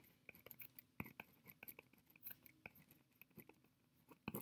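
Faint scratching and small ticks of a pen writing on paper, a scattered string of light strokes with a couple of sharper taps near the end.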